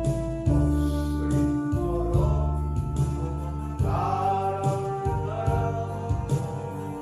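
Korean Christian praise song: singing over instrumental accompaniment with a steady bass line and percussion.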